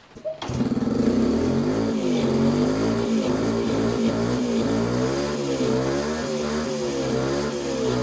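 Yamaha RS100's single-cylinder two-stroke engine starts about half a second in, then runs with the throttle blipped, its pitch rising and falling. This is its first run with the freshly cleaned and refitted reed valve.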